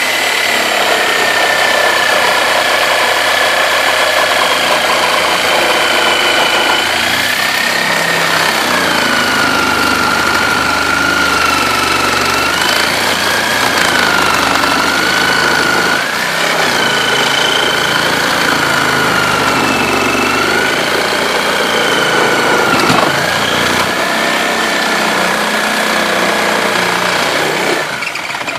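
Reciprocating saw cutting into a wood-sided house wall. The motor whine rises and falls as the blade loads up and frees, over a steady rasp of the blade, then cuts off near the end.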